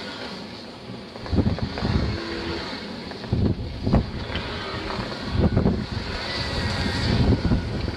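X5 Frontier mid-wheel-drive power wheelchair driving through a few inches of snow, its drive motors running under repeated low gusts of wind buffeting the microphone, which are the loudest sound.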